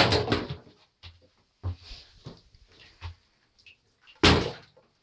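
Irregular knocks and thuds around a water-filled tub with floating cork toy boats, two of them loud: one right at the start and one about four seconds in, with lighter knocks between.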